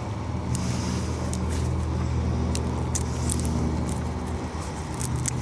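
A steady, low mechanical hum from a motor or engine running in the background, with a few short, sharp crackles and clicks over it.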